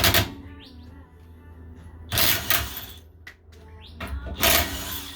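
Impact wrench with a 19 mm socket firing in two short hammering bursts, about two seconds in and again near the end, breaking a nut loose.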